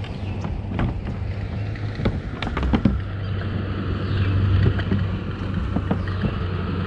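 Fishing kayak under way: a steady low hum from the moving boat, with scattered knocks and clicks from gear against the plastic hull.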